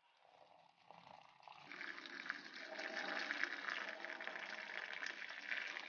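Melted jaggery syrup pouring onto cooked rice in a pot: a faint, steady liquid trickle that starts a little under two seconds in.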